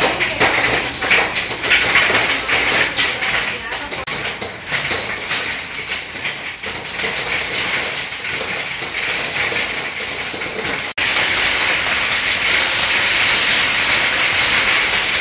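Hailstones hitting a door, its glass transom and the surroundings: a dense, irregular clatter of many small ticks. About eleven seconds in it changes to a steady hiss of hail and rain against a window.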